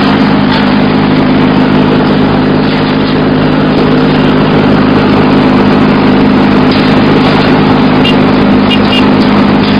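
Diesel-engined mobile wood chipper running steadily at a constant pitch, loud and even throughout.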